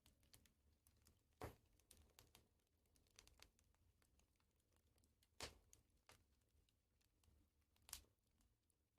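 Faint crackling of a burning wood fire: scattered small ticks and pops, with three louder snaps, about a second and a half in, midway, and near the end.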